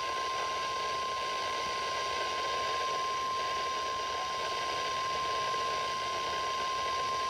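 NOAA Weather Radio warning alarm tone: one long, steady, single-pitch tone of about 1050 Hz over radio hiss, the signal that a warning message follows.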